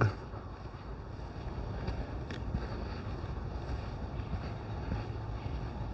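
Wind buffeting the microphone outdoors: a steady, low rumbling noise with no distinct events.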